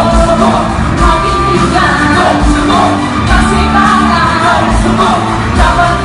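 Pop song performed live through a PA: singing over amplified backing music with a steady low beat.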